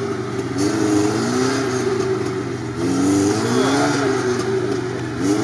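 Lada Niva's engine revving up and down, its pitch rising and falling every second or so, as the car works in deep swamp mud.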